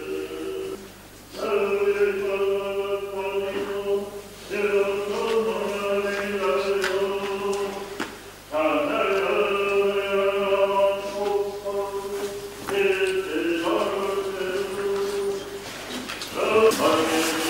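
Voices chanting, holding long steady notes in phrases of about three to four seconds, each broken off by a short pause.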